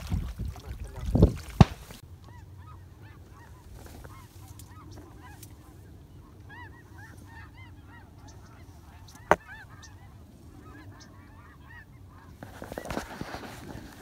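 A flock of snow geese flying high overhead, many overlapping honking calls from about two seconds in until shortly before the end. Two sharp knocks come in the first two seconds and one more click about nine seconds in.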